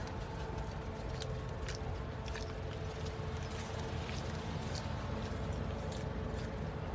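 Footsteps of people walking on parking-lot pavement, a sharp step about every half second to second, over a steady low rumble and a faint steady hum.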